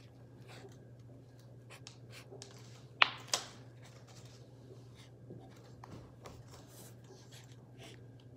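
Felt-tip marker scratching and tapping faintly while marks are drawn, with light handling noise. Two sharp clicks close together about three seconds in are the loudest sounds.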